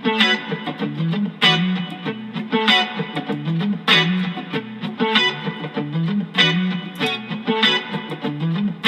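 Electric guitar through effects playing a repeating funk riff: a sharp chord stab about every second and a bit, with low notes moving underneath.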